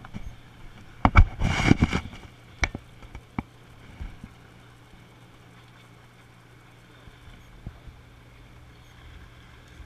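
Handling noise from hands on a baitcasting reel close to the microphone: a quick cluster of knocks and rubbing about a second in, then a few single clicks, over a steady low hum.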